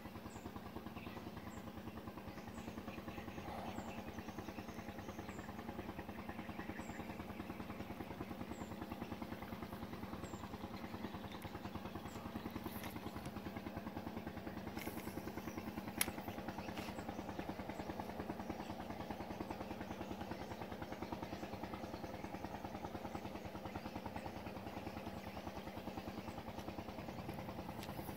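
A small engine running steadily, a low even hum with a fast pulse, with a single sharp click about sixteen seconds in.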